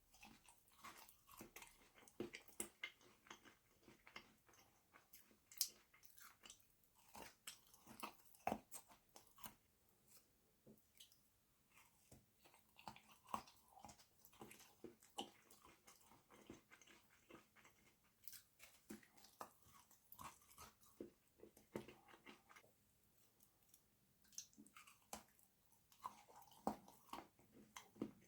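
Close-miked chewing and crunching of dark chocolate with crunchy Lotus Biscoff spread: a steady run of crisp, crackly bites and chews with a few louder snaps, easing briefly a little after the middle.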